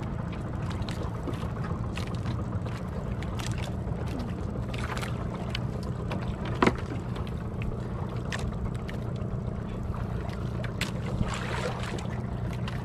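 A bangka fishing boat's engine running steadily at sea, with scattered light clicks and one sharp knock about six and a half seconds in.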